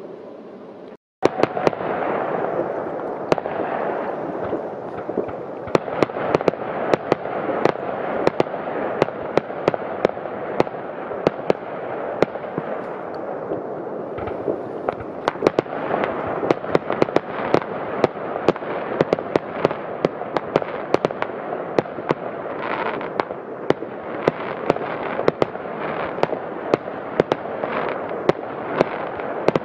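Fireworks going off in a dense barrage: dozens of sharp bangs and cracks over a continuous wash of more distant explosions, after a brief gap about a second in.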